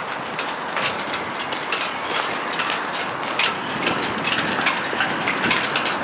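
Halyards and rigging ticking and clinking against yachts' masts, rapid and irregular, over a steady rush of wind.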